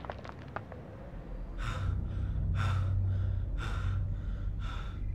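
A young man panting hard, about one heavy breath a second, over a steady low hum.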